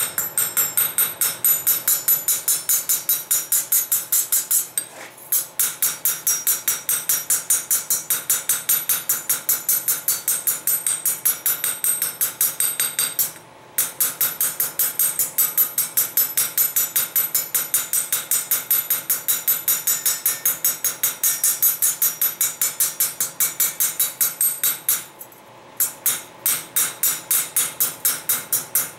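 Rapid, even light hammer blows, about five a second, from a ball peen hammer reground into a texturing tool, striking a thin steel cut-out held on the anvil, with a bright ringing metal tone; the hammering stops briefly three times. This is texturing work, pressing needle and bark lines into the steel.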